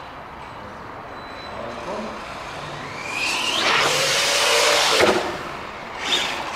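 Arrma Big Rock 3S RC monster truck accelerating over dirt. About three seconds in, its brushless motor's whine rises over the hiss of tyres throwing loose dirt. A sharp knock comes about five seconds in, and a shorter burst of motor and tyre noise follows near the end.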